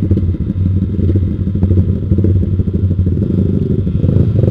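Yamaha Vixion's single-cylinder four-stroke engine running steadily through a Proliner TR1 short aftermarket exhaust, a dense, even pulsing exhaust note.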